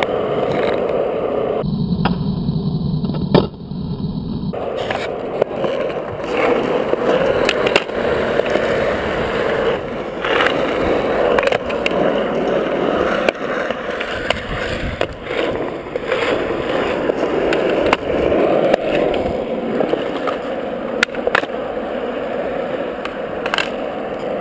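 Skateboard wheels rolling steadily on smooth concrete, with repeated sharp wooden clacks at irregular intervals from the board's tail popping and the board landing during flatground tricks.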